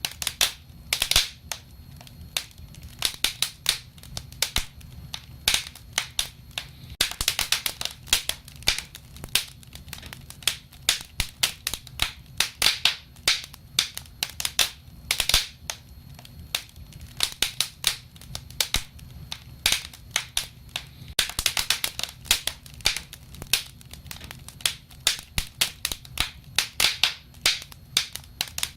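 Wood fire crackling: irregular sharp pops and snaps, some in quick clusters, over a low steady rumble of burning.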